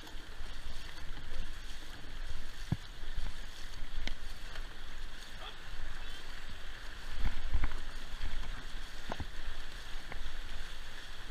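Water rushing and splashing past a voyageur canoe paddled at race pace, heard from on board, with a low rumble underneath and a few sharp knocks.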